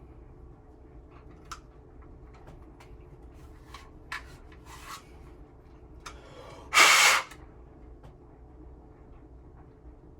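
Light handling clicks and knocks, then one loud hiss lasting about half a second, about two-thirds of the way in: a burst from an aerosol spray can aimed at a home smoke alarm.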